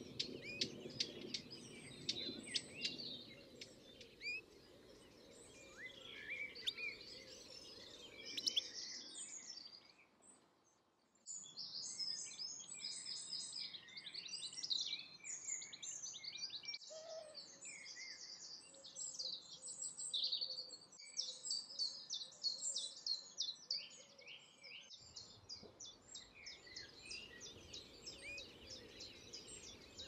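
Several songbirds singing and calling at once, a busy mixed chorus of high chirps and trills. It drops away briefly about ten seconds in and comes back fuller a second later.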